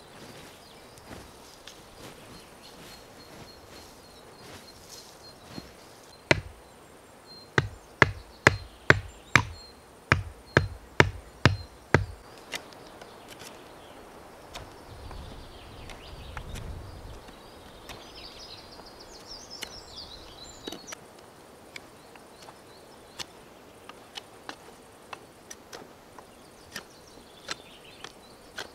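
Chopping into wood with a blade: a single blow, then a run of about a dozen sharp, evenly spaced chops at two or three a second that stop abruptly. Afterwards only faint scattered clicks as a stick is whittled with a knife.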